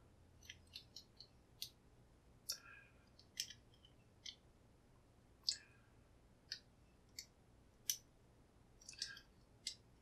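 Faint, irregular small clicks of a steel folding pocket pick working the pins of a clear acrylic practice padlock, the sound of single-pin picking under tension as pins are probed and set.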